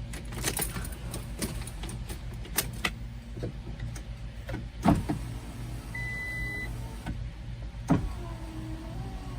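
Switch clicks while a new power window master switch is tested on a RAM ProMaster, then the door's power window motor runs with a wavering whine from about eight seconds in, over a steady low hum. A short single-tone beep sounds about six seconds in.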